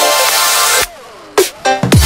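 Background electronic dance music with a heavy bass beat. Just after the middle the beat drops out for about half a second while a synth tone glides down in pitch, then the bass comes back in near the end.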